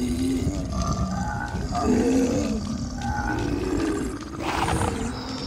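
Monster roars and growls, several in a row, with a short burst of hiss about four and a half seconds in.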